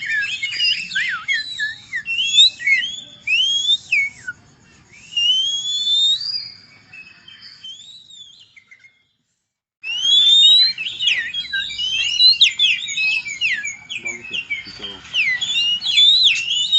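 A man whistling birdsong by mouth: fast chirps, trills and rising and falling whistled notes in imitation of a songbird. It thins out about six seconds in, stops briefly just before ten seconds, then resumes as a dense run of rapid chirps.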